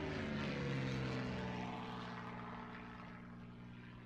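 Intro sound effect: a low, droning whoosh with a few held tones that sag slightly in pitch at first, then fades slowly.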